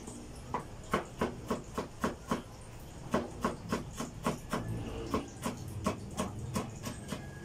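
Kitchen knife chopping carrots on a wooden cutting board: a steady run of sharp knocks, about three or four a second, starting about half a second in.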